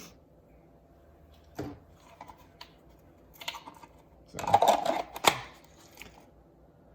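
Light scattered clicks and taps of a pistol and holster being handled, with a louder cluster of knocks about two thirds of the way in.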